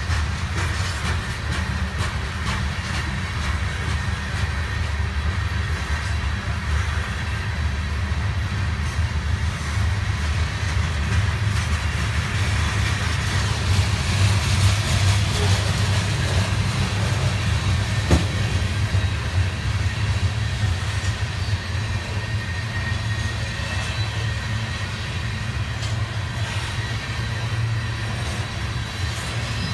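Covered hopper cars of a freight train rolling past: a steady low rumble of steel wheels on rail with faint steady high tones over it, and a single sharp knock about eighteen seconds in.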